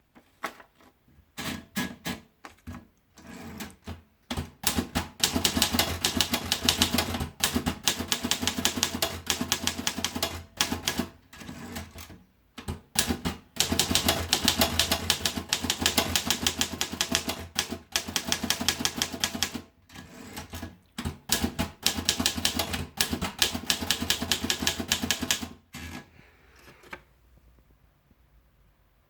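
Torpedo model 18 manual typewriter being typed on: a few separate keystrokes at first, then three long runs of fast keystrokes with short pauses between them. The typing stops a few seconds before the end.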